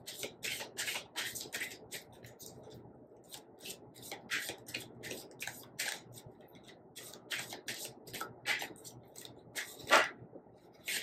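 A tarot deck being shuffled by hand: a run of quick, crisp card flicks, several a second, with one louder slap near the end.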